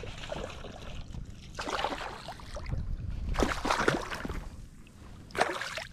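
A hooked fish thrashing and splashing at the surface of shallow water, in three bursts: one about a second and a half in, a longer and louder one around three and a half seconds in, and a short one near the end.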